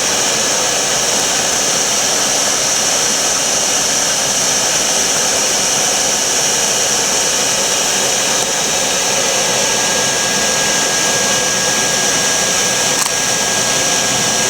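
1949 Electrolux Model XXX canister vacuum cleaner running steadily with a loud, high, airy rush. A faint whistle joins about ten seconds in, and a single click sounds near the end.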